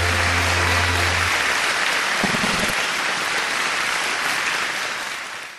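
Studio audience applauding at the end of a dance number, with the dance music's last low bass note held under it for the first second or so. The applause fades out near the end.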